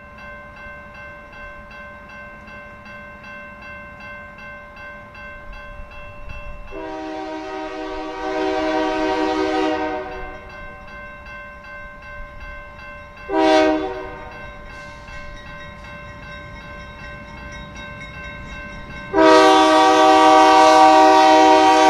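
Diesel freight locomotive's multi-chime air horn blowing for a grade crossing: a long blast, a short one, then a long, louder one as the train nears. A steady electronic crossing bell rings underneath.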